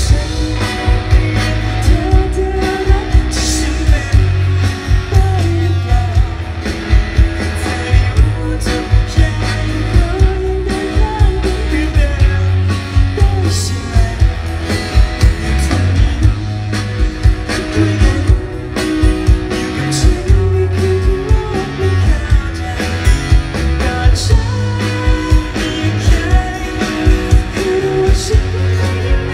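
Live band playing loud through a festival PA: a man singing with acoustic guitar over drums and a heavy, pulsing bass.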